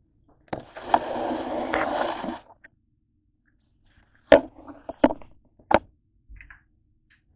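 Handling noise from the camera being moved on a kitchen countertop: a scraping noise for about two seconds, then three sharp knocks about four to six seconds in.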